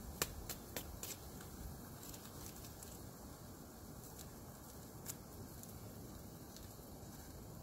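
Handling and opening an MRE coffee packet: several sharp clicks and crinkles in the first second, two more a few seconds later, over a steady faint hiss.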